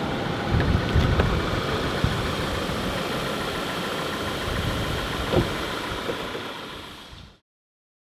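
Steady road and engine noise inside a moving car's cabin, with a few small knocks, fading out to silence about seven seconds in.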